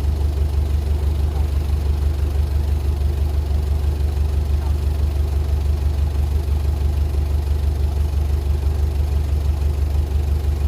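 Diesel engine of a heavy earthmoving machine idling steadily, with a fast, even low pulse.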